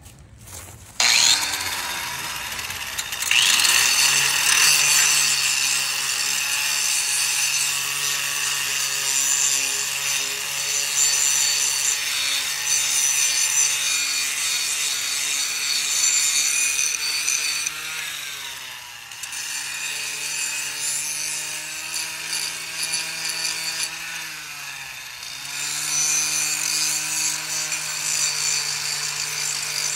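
An electric power tool sanding the rusty metal underside of a go-kart. The motor spins up in the first few seconds, then runs with a steady hum over a rough scraping hiss. Its pitch dips briefly and recovers twice in the second half.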